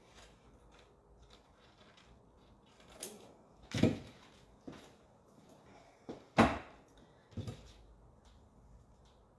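Scissors and cut-out paper pieces being handled on a wooden worktable: faint paper rustling with several sharp knocks, two louder thumps about four and six and a half seconds in as the scissors are put down and things are moved on the table.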